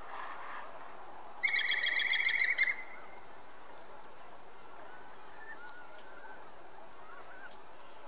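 Levaillant's woodpecker calling a single fast run of loud, even notes, lasting just over a second, about a second and a half in. Faint song of other birds follows later.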